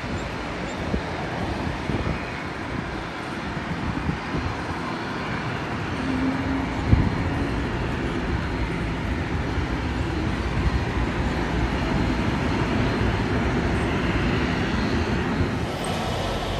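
Jet engines of a China Airlines Airbus A321neo as it lands: a steady, broad rumble that swells slightly from about six seconds in, with a short knock about seven seconds in.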